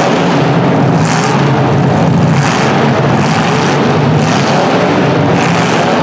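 Several unmuffled demolition derby car engines running and revving at once, loud and steady with repeated surges.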